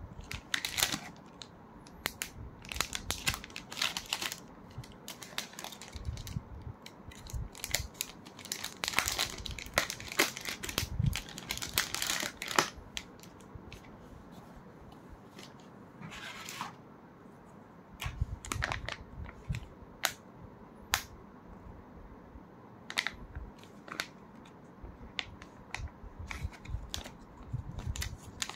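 Plastic retail packaging pouch being handled and opened by hand: irregular crinkling and rustling of the plastic with sharp clicks and taps, in bursts with quieter pauses between.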